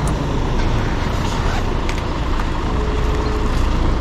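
Road traffic noise: a steady low rumble of passing vehicles, with a faint short tone about three seconds in.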